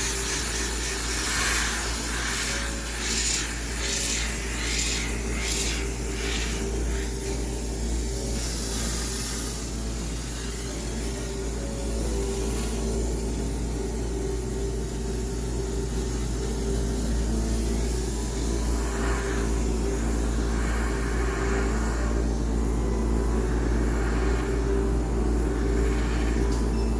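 High-pressure steam cleaner sterilising a coin-laundry washing machine. The steam hisses in a run of short blasts, then again about two-thirds of the way through, over the steady hum of the steam unit.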